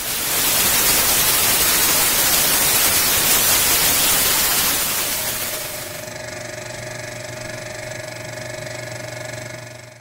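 Intro sound effect: loud static-like white-noise hiss for about five seconds, giving way to a quieter steady hum of several held tones that cuts off abruptly near the end.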